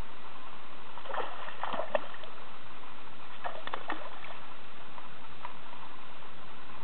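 A hooked rainbow trout splashing and thrashing at the surface while being played on a fly rod, in two short bursts: about a second in and again near four seconds, over a steady noisy background.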